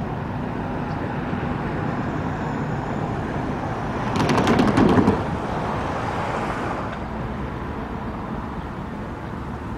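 Steady rumble of a freight train passing a grade crossing, with a short burst of rapid clattering and a heavy thump about four seconds in.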